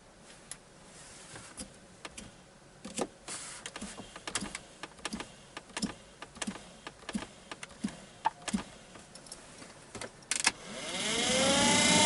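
Sharp clicks and knocks of handling a GAZelle heater fan motor. About ten and a half seconds in, the brushed motor spins up with a rising whine and buzz, a noise traced to its commutator under the brushes.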